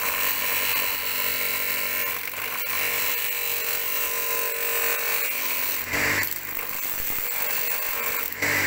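Homemade electric disc sander grinding a steel bar: a steady grinding of metal against the abrasive disc over the motor's hum. The grinding dips for a couple of seconds past the middle, then picks up sharply near the end.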